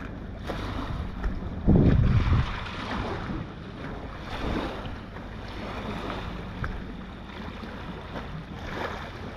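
A sightseeing boat's engine running on the lake as a low steady hum, under wind buffeting the microphone. A stronger gust comes about two seconds in.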